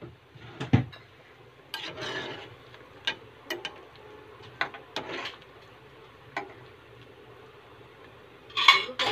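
Metal spoon clinking and scraping against the pot while stirring a boiling pork broth and prodding the potato chunks to check whether they are soft, with a louder clatter near the end.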